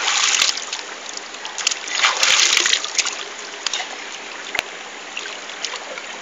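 Shallow river water running over rocks, with a child splashing it with his hands in two louder bursts, at the start and about two seconds in.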